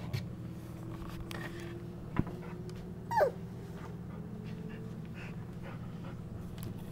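A three-and-a-half-week-old golden retriever puppy gives one short whimper, falling steeply in pitch, about three seconds in, over a steady low hum. There are a couple of small knocks as well.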